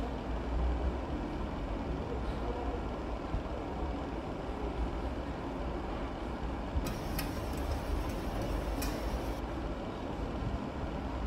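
A chef's knife slicing a carrot on a plastic cutting board, giving a few faint taps, most of them in the second half. A steady low rumble of background machinery is louder than the knife throughout.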